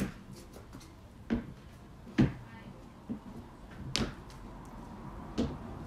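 Dull wooden thuds and knocks, roughly one every second or so: feet landing on and stepping off a wooden plyo box, with a kettlebell working between them.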